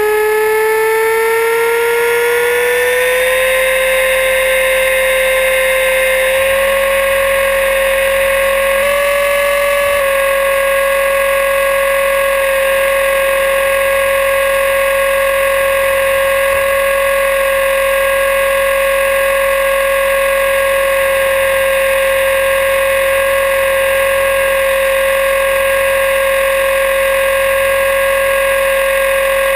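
Align T-Rex 500E electric RC helicopter spooling up on the ground. The whine of its motor and gears rises in pitch over the first few seconds, then holds steady at head speed.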